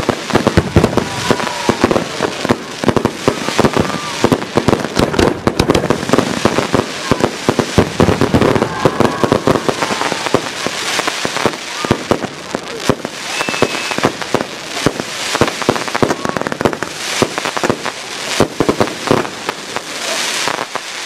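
A fireworks display at full barrage: multi-shot cakes firing continuously, with many sharp bangs a second running together without a break.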